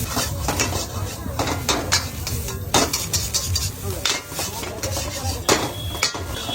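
Metal spatula striking and scraping a wok as vegetable fried rice is stirred. The sharp clangs come at irregular intervals over a steady low rumble.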